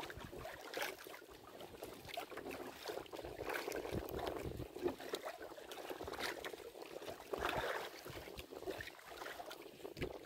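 Choppy sea water splashing and lapping against the hull of a small wooden outrigger boat in irregular surges, while a gillnet is hauled in over the side by hand.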